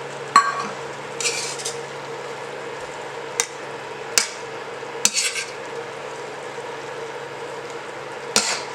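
A pan of Thai red curry with coconut milk just stirred in, sizzling steadily as a spoon stirs and scrapes through it. The spoon clinks against the pan several times: about half a second in, around three and four seconds, at five seconds, and near the end.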